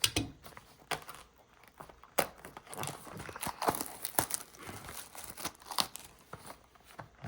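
Packaging of a sealed trading-card box being torn open by hand, with irregular crinkling and short ripping sounds.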